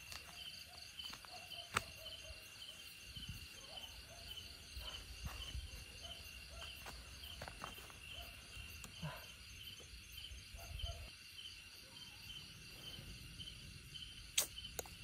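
Faint crickets chirping in a steady, evenly pulsed high trill, with a few soft clicks and one sharp click near the end.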